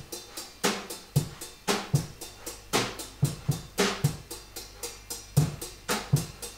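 Background music carried by a steady drum beat, with low kick-drum thumps and sharper snare-like hits repeating through.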